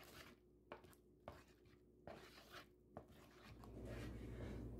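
Wooden spoon stirring a thick yogurt mixture in a wooden bowl: faint soft scrapes and taps, a few times a second apart, over low room hum.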